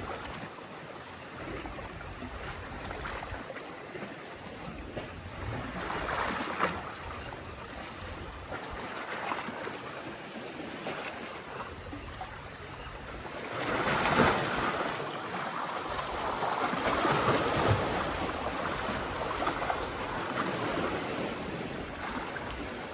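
Sea waves washing and splashing among concrete tetrapod breakwater blocks, with wind. The water noise rises in a louder surge about fourteen seconds in and stays fuller for a few seconds after.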